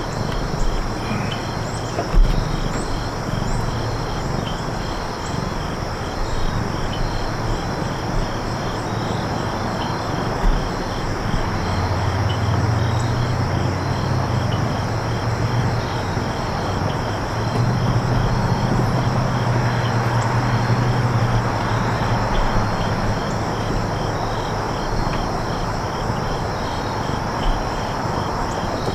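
A steady outdoor chorus of insects chirping in fast, even pulses, over a constant rushing background. A low engine drone comes in about twelve seconds in and fades out some ten seconds later.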